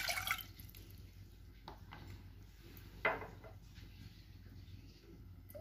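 Water poured from a cup into an aluminium pan, splashing and trailing off within the first half second. Then low room tone with two light knocks, the louder one about three seconds in.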